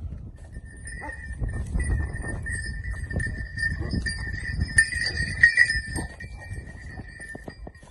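Dog whining in a high, drawn-out tone from about a second in until near the end, loudest around the middle, over scuffling and rustling of movement close by.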